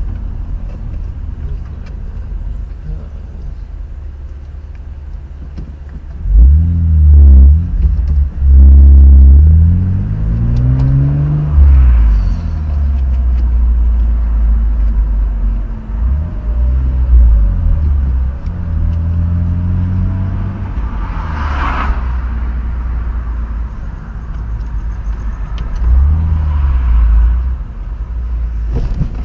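A car's engine and road rumble heard from inside the car through a dashboard camera. It is a steady low rumble, with the engine note rising and falling several times as the car speeds up and slows down, loudest about six to ten seconds in. A brief sharp noise comes a little after twenty seconds.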